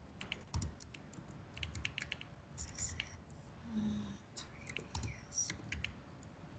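Typing on a computer keyboard: irregular runs of key clicks as a search phrase is typed.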